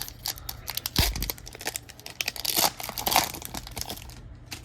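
Foil trading-card pack wrapper being torn open and crinkled by hand, a busy run of crackles and rustles, with a dull thump about a second in.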